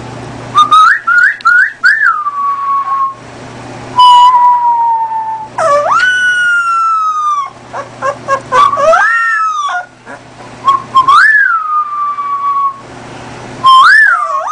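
A person whistling and a puppy answering with high, whistle-like howls that copy the notes. There are several separate phrases of rising and falling notes with short gaps between them.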